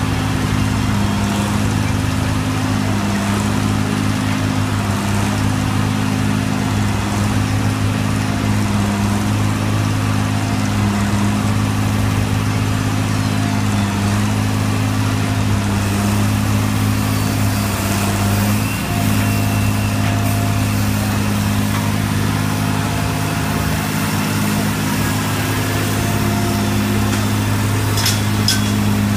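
Engine of a truck-mounted auger drill rig running steadily under load as the auger bores a foundation pier hole in soil. A few sharp knocks come near the end as the auger is lifted out.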